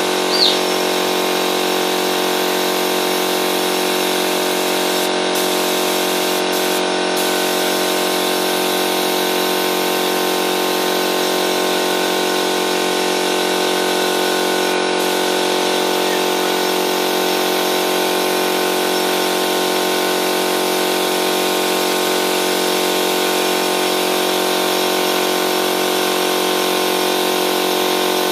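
Air compressor running steadily, a constant hum with many overtones, under the hiss of compressed air from a paint spray gun. A brief click sounds just after the start.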